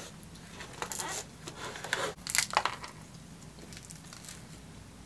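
Crunching bites into crispy thin-crust pizza, close to the microphone: a few crisp crunches in the first three seconds, the loudest just past two seconds in, then quieter chewing.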